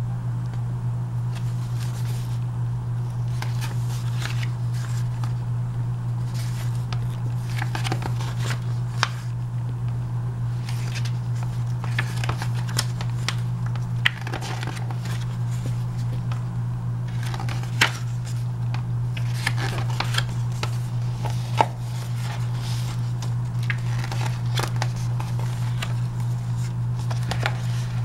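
Glossy catalog pages being handled and turned, with scattered short rustles and flicks, over a steady low hum that runs throughout.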